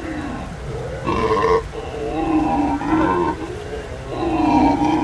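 Black howler monkeys howling: a run of deep, drawn-out calls that swell and fade, with three louder surges about a second and a half apart.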